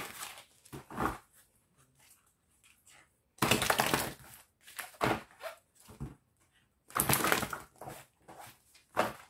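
A deck of tarot cards being shuffled by hand: three short rustling bursts about three and a half seconds apart, with light taps and flicks of the cards between.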